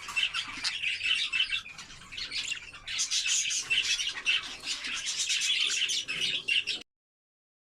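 Budgerigars chattering, a dense run of quick high chirps and warbles that cuts off suddenly near the end.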